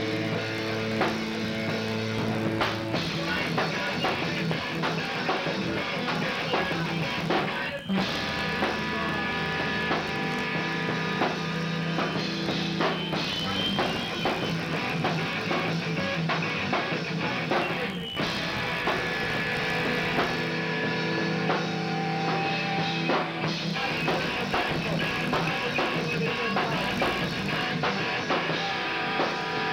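Hardcore punk band playing live on two electric guitars, bass and drum kit, heard through a camcorder microphone. The playing stops very briefly about 8 seconds in and again about 18 seconds in.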